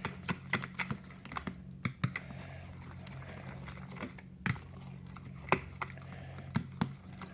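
Thick slime being stirred in a container, with irregular sharp clicks and taps as it is worked.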